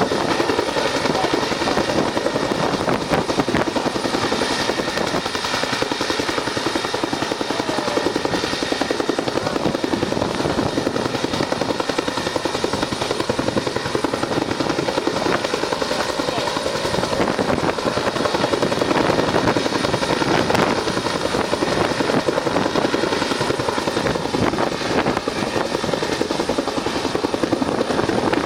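Search-and-rescue helicopter hovering during a winch rescue, its rotors and turbine engines running loud and steady, with a fast rotor chop throughout.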